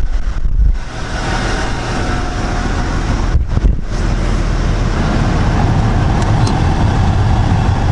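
Honda Accord's climate-control blower running with the engine on: a loud, steady rush of air with a low hum, the AC blowing again after the blend door actuator repair. A couple of brief bumps come about half a second and three and a half seconds in.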